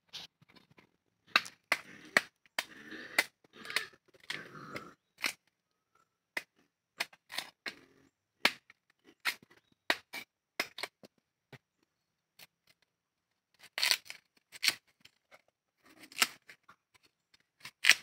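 Cacao pods being broken open and emptied by hand: irregular sharp cracks and snaps of the husks, with scraping between. The cracking is busiest for a few seconds near the start and again near the end.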